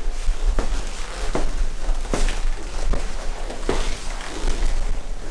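Slow footsteps on a tiled floor, a short knock about every three-quarters of a second, over a steady low rumble.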